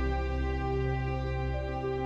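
Ambient background music with long held notes.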